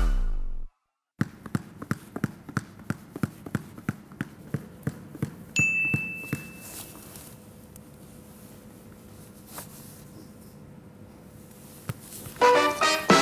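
A small ball bounced steadily on a hard floor, about three bounces a second. About halfway through, a single high phone notification chime rings out and fades. Then a few seconds of quiet room tone, and music with drums starts near the end.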